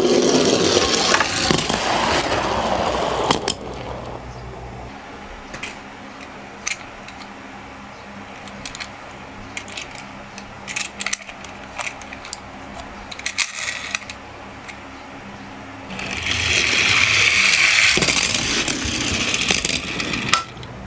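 Toy minicars rolling down a slope track: a loud rolling rattle lasting about three seconds at the start, then scattered clicks, then a second rolling run starting about sixteen seconds in and lasting about four seconds.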